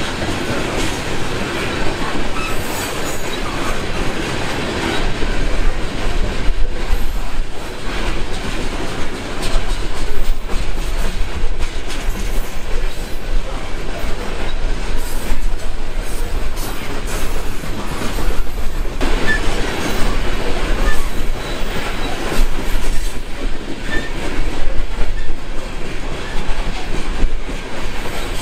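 Coal train's freight cars rolling past close by, their wheels clicking steadily over the rail joints.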